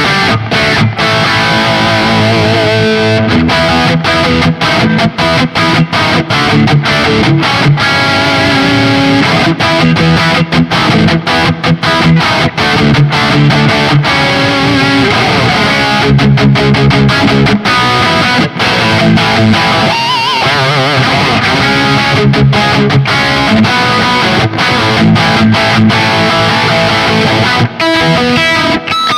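Höfner 4575 electric guitar played through distortion: riffs and chords with frequent short stops between phrases, and wavering vibrato on held notes about two-thirds of the way through.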